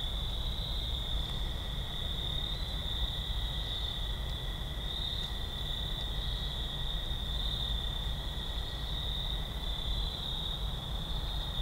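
Chorus of night-singing insects: a steady high trill with a slight pulse, over a low steady rumble.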